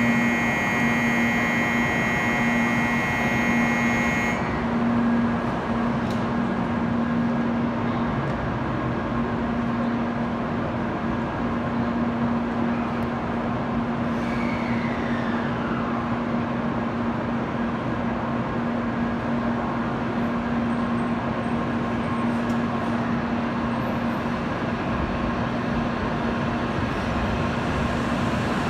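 An electronic platform departure bell rings a steady bright chord for the first few seconds and then stops, over the steady low hum of an N700-series Shinkansen bullet train standing at the platform. A short falling whine comes about halfway through, and near the end the train begins to pull out.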